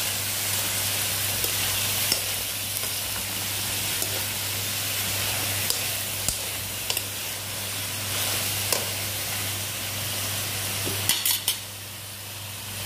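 Chopped squash, string beans, eggplant and onion sizzling in hot oil in a non-stick pan while being stirred, with the spatula scraping and clicking against the pan now and then. Near the end a quick run of knocks, after which the sizzling quietens.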